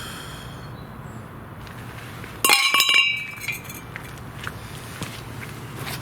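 Metal clanging and clattering, with a brief bright ringing, about two and a half seconds in, followed by a few lighter knocks.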